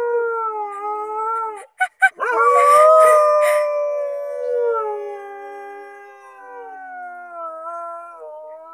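A dog howling: a long howl, a brief break about two seconds in with a couple of short yips, then a second long howl that slowly falls in pitch.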